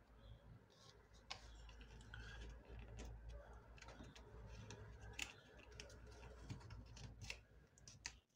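Faint crackles and small clicks of origami paper being folded and pressed into creases by hand, scattered irregularly over a low steady hum.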